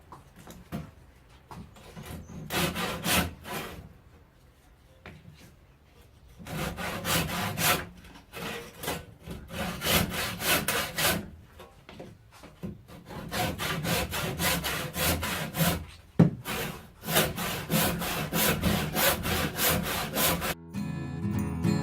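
Hand saw cutting through a beefwood log in runs of repeated back-and-forth strokes, with short pauses between runs.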